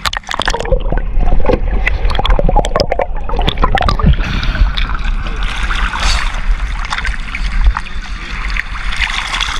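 Water splashing and sloshing around a small fishing boat, with a run of knocks and clatter in the first four seconds, over a steady low rumble.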